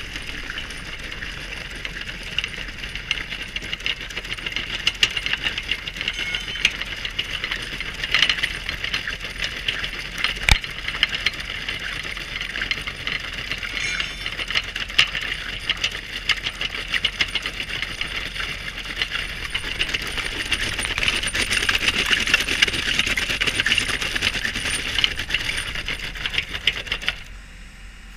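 Hydraulic cold-milling drum mounted on a JCB machine, cutting asphalt: a continuous dense clatter of the cutter teeth chipping the surface, with loose chips rattling. It eases off briefly near the end.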